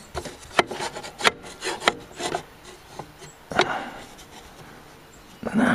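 A speed square being set and slid against a compound miter saw's metal table and fence: a few sharp clicks and taps in the first two seconds or so, then a short scraping rub about halfway through.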